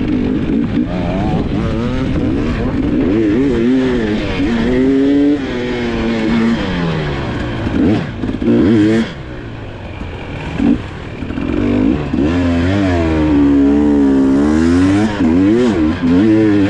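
Dirt bike engine revving up and down repeatedly under changing throttle, its pitch rising and falling. The revs drop off for a couple of seconds just past the middle, then pick up again and climb hard toward the end.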